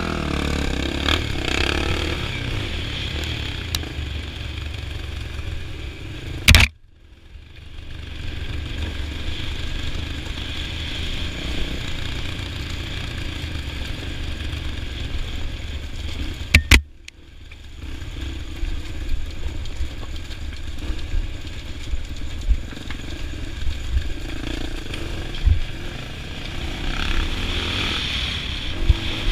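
Dirt bike engine running under way on a rough trail, with wind noise and clatter from the ground. The sound is cut twice, at about 7 and 17 seconds, each time with a sharp click and a moment of near silence.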